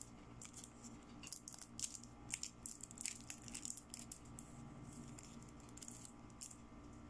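Faint crinkling and clicking of plastic as a toy makeup brush with a glitter-filled handle is picked up and handled: a run of quick sharp crackles through the first four or five seconds, then one more near the end.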